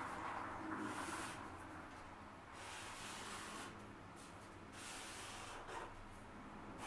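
Felt-tip marker drawing straight lines on paper: about four faint, hissy strokes, each lasting around a second, as the sides of a rectangle go down.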